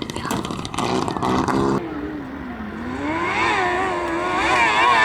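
Competition vehicle's engine under hard throttle, its pitch sinking and then climbing and wavering up and down as the revs rise and fall. Before that, about two seconds in, a noisier stretch with clicks and a briefer engine note cuts off abruptly.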